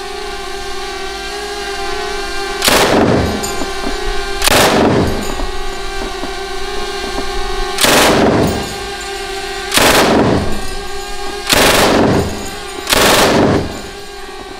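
IWI Negev 5.56 mm belt-fed light machine gun firing six short bursts on full auto, spaced about one and a half to three seconds apart.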